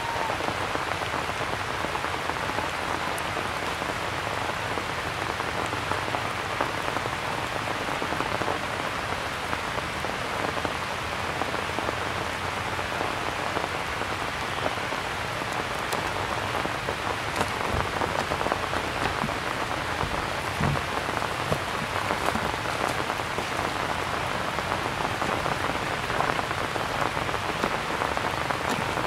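Steady rain falling, an even hiss of countless drops with small scattered taps and no letup.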